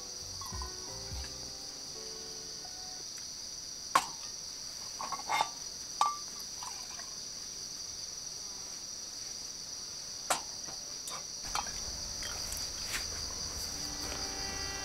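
Steady, shrill chorus of insects in the surrounding woods, one unbroken high drone. It is broken by a few sharp clicks on the table, the loudest about four, six and ten seconds in.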